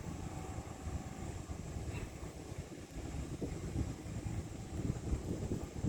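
Low, uneven rumble of a diesel-hauled passenger train approaching in the distance, mixed with wind buffeting the microphone.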